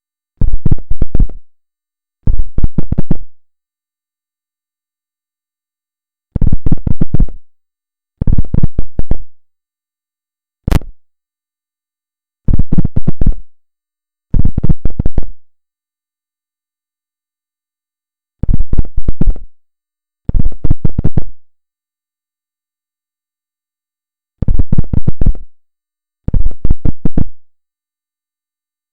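The Morse-code-like buzzing signal recorded from a refrigerator, heard as pairs of short buzzing bursts. Each burst lasts about a second and is made of rapid pulses. The pairs repeat about every six seconds with dead silence between them, and there is one short click near the middle.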